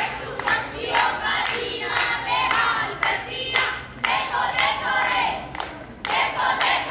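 A group of schoolchildren singing together in unison, with rhythmic hand claps.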